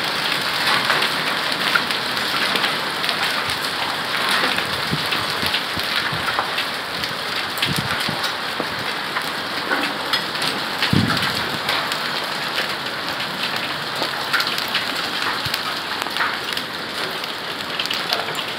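Marble-sized hail and heavy rain pelting a stone patio, lawn and trees: a steady dense patter laced with many sharp ticks of hailstones striking.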